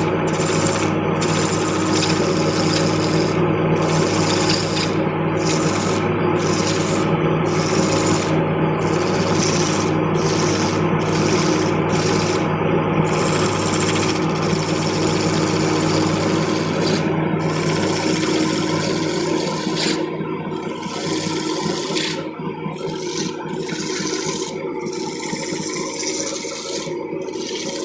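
Wood lathe running with a tool or abrasive worked against a spinning mahogany piece: a steady motor hum under a rubbing, scraping noise that breaks off briefly again and again as contact is lifted. It grows a little quieter in the last third.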